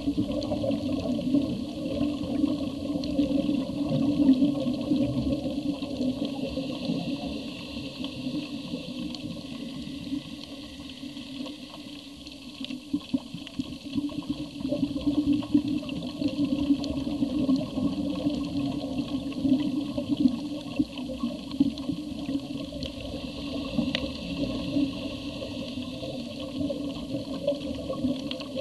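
Underwater ambience picked up by a camera in its housing: a steady, muffled rush of water.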